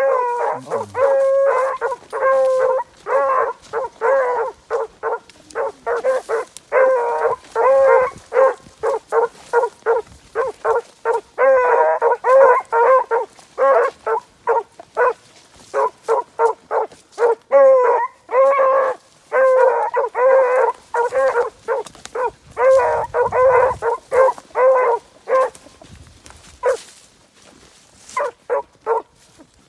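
15-inch male beagles giving tongue, a fast run of short, high barks several a second that thins out near the end: hound voice on a rabbit track during a brace trial.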